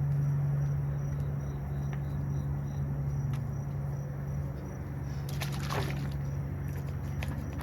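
Wet rag and brush scrubbing and wiping a chainsaw's housing, with small clicks and a short rustling scrape about five seconds in. A steady low hum sounds throughout.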